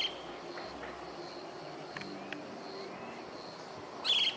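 Birds chirping: a short sharp call near the start and another near the end, a rising whistled note in the middle, and a thin high note repeating in the background, over a faint steady low hum.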